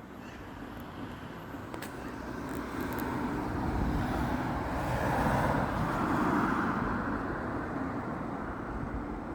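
A road vehicle passing by: traffic noise swells to a peak about five to six seconds in, then slowly fades.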